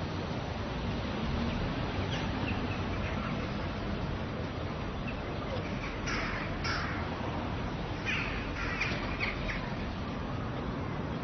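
Small-town street ambience: a steady background hum of the town, with a bird calling a few times, a pair of calls about six seconds in and a quick run of calls about two seconds later, and faint chirps early on.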